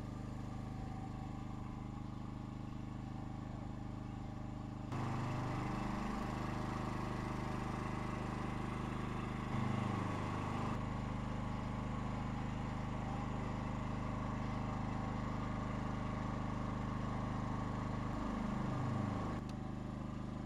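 A small engine runs steadily, a low hum that steps up in loudness about five seconds in and drops back near the end, with a few brief falling sweeps in pitch.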